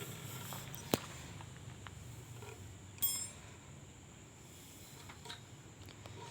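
Metal tools and engine parts clinking at a workbench: a sharp click about a second in, then a short ringing metallic ping about three seconds in, with a few faint taps after.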